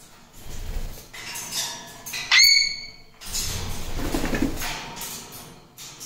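Caged parrot giving one short, loud whistled call a little over two seconds in, sweeping up sharply and then holding steady. Around it are bursts of rustling and fluttering as the birds move about the cage.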